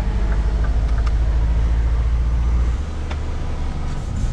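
Scania S500 truck's diesel engine running steadily under way, heard inside the cab as a deep pulsing drone; a little under three seconds in the lowest part of the note drops away and the engine runs lighter. A few faint clicks and rattles from the cab.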